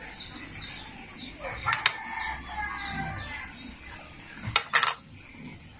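A rooster crowing: one long call starting about a second and a half in. Two sharp knocks come with it, one during the crow and one near the end.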